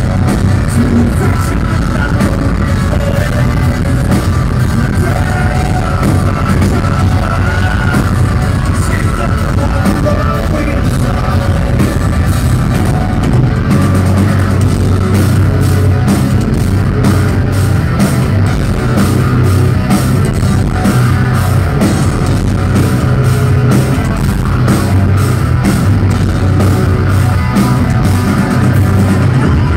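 Live rock band playing loud, heard from the crowd: guitars, drum kit and a male lead vocal. The drum beat becomes steady and prominent about halfway through.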